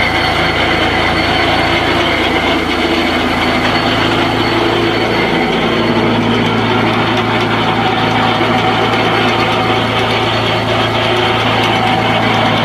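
Wood chipper running steadily, an even mechanical hum whose low tone shifts slightly about five seconds in.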